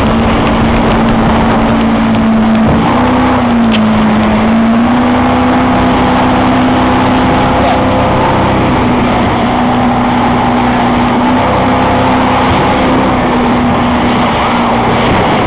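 Speedboat engine running hard at a steady high pitch while towing an inflatable ride, the revs dipping briefly and picking up again about four seconds in. Heavy rush of wind and water spray runs underneath.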